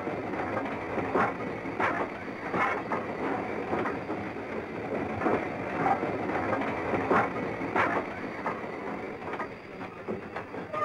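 A small steam tram locomotive and its cars running on the track: a steady rattle with a knock about every three-quarters of a second.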